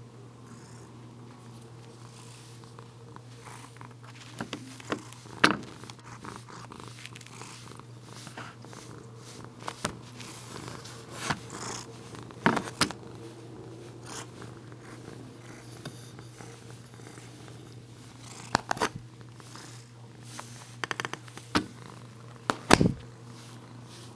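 Bengal cat purring steadily, with a handful of sharp knocks scattered through, the loudest about five seconds in and near the end.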